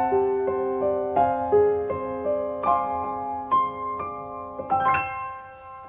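Background piano music: single notes and chords struck about every half second, ending on a last chord about five seconds in that rings out and fades.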